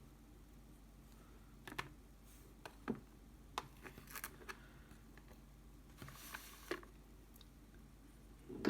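Faint, scattered light clicks and taps of small metal lock parts from a Trioving Twin Control lock (side pins and side springs) being handled and set down, with a short scrape about six seconds in and a sharper clink near the end.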